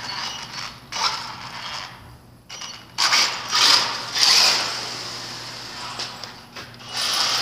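Small RC off-road truck driving in spurts across a concrete floor, its motor and gears running in bursts with quieter gaps between. Something sounds wrong with it, and the driver wonders whether the body is loose.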